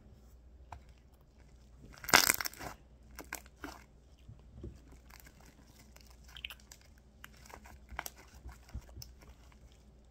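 Homemade glue-and-shaving-cream slime being squished and pressed by hand. It gives one loud crackling squelch about two seconds in, then a scatter of small pops and clicks.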